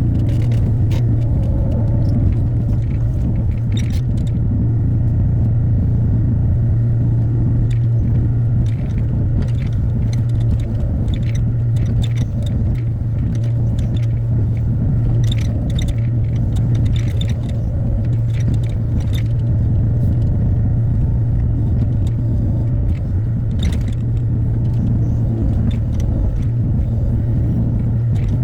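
Hyundai HX60A excavator's diesel engine running at a steady pitch under work, with scattered short clicks and scrapes over it.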